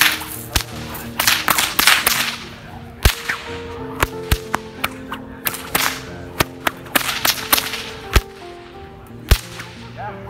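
Bullwhip cracked over and over in a fast routine: more than a dozen sharp cracks at uneven spacing, with the swish of the whip through the air around some of them.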